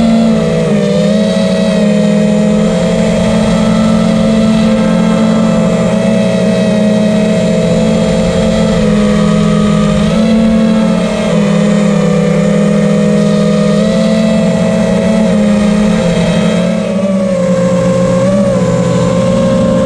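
5-inch FPV quadcopter's brushless motors (FLYWOO NIN 2207, 2450Kv) spinning three-blade props, a steady buzzing whine held at a near-constant pitch. The pitch wavers and dips briefly with throttle changes about a second in, around halfway and again near the end.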